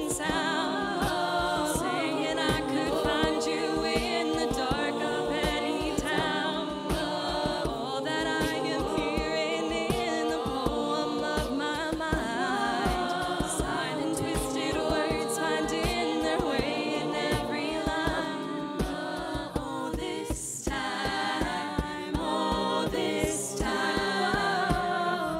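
A cappella vocal group singing a pop song: a female lead voice over a choir of backing voices, with a steady low beat underneath.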